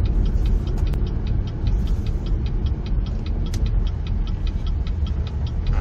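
Turn-signal ticking in a 2018 Chevy Malibu's cabin, quick and evenly spaced, over a steady engine and road rumble from the car in motion. A 'Left Rear Turn Indicator Failure' warning is showing, which goes with aftermarket LED bulbs in place of the stock ones.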